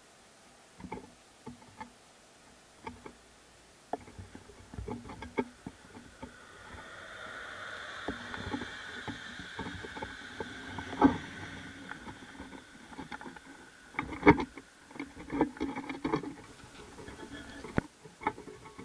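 Passenger train passing on the line, its wheel and rail noise swelling and fading over several seconds. Scattered sharp knocks, the loudest about fourteen seconds in.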